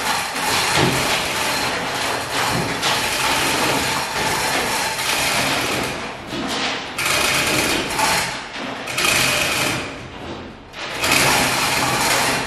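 Hand-held power tools running against the top edge of a fibreglass boat hull: a steady rasping noise with a faint motor whine, dipping briefly a few times as the tools ease off.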